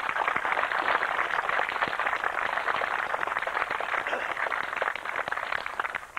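Crowd applauding: many hands clapping together, thinning to a few scattered claps near the end.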